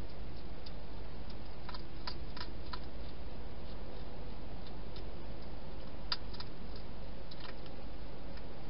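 A hedgehog eating from a bowl inside a plastic feeding box: irregular little clicks and ticks, a few close together about two seconds in and again past six seconds, over a steady hiss and low hum.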